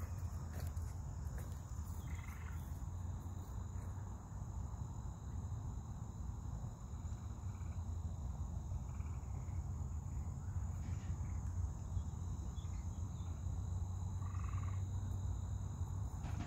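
Outdoor ambience: insects trilling steadily on a high note, with a few short animal calls and a steady low rumble underneath.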